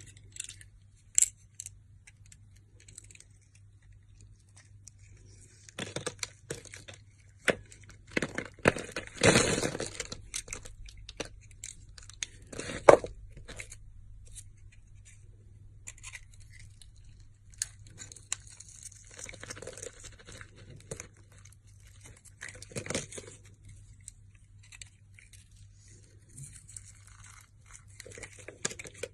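Close-up tearing and crinkling handling sounds with scattered sharp clicks and snaps, coming in two busy stretches with quieter gaps, over a steady low electrical hum.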